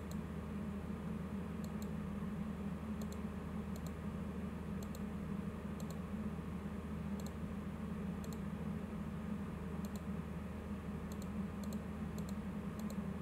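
Computer mouse clicking, short sharp double clicks about once a second, as lecture slides are paged through, over a steady low hum.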